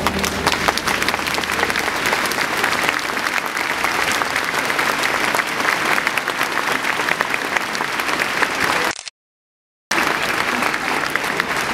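A crowd applauding: dense, steady clapping, with the last low notes of music dying away in the first second. The applause cuts to dead silence for about a second near the end, then resumes.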